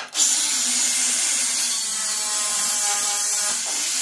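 Handheld angle grinder running steadily, grinding a small metal part.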